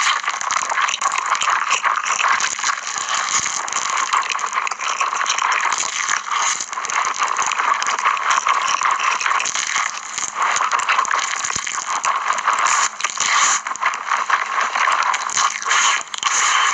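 Close-miked eating sounds: a mouth chewing spicy cheese instant noodles, with dense wet crackling and clicking.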